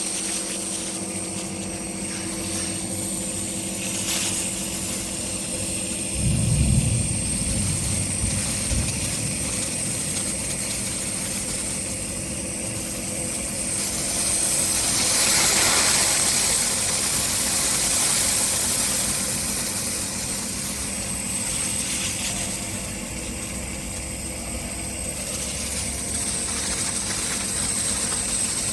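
Nebulizer compressor running steadily: a motor hum with a high whine and a hiss. There is a brief low rumble about six seconds in, and the hiss grows louder for a moment in the middle.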